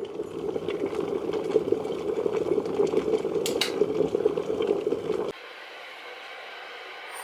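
Water bubbling steadily with a crackling texture, cutting off abruptly about five seconds in.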